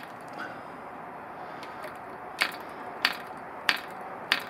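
Red Fin .049 model diesel engine's propeller flicked over by hand four times, about two-thirds of a second apart, each flick a sharp click; the engine does not fire.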